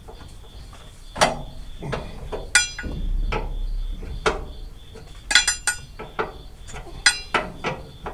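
Metal hand tools clinking and knocking during wrench work, with several short, ringing metallic clinks among duller knocks.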